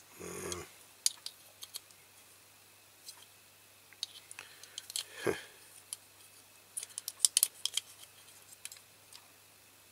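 Steel pliers clicking and tapping against a diecast metal toy tractor as its bent steering column is gripped and worked straight. The clicks come in scattered ones and twos, with a quick run of the loudest about seven seconds in. A short voice sound comes at the very start.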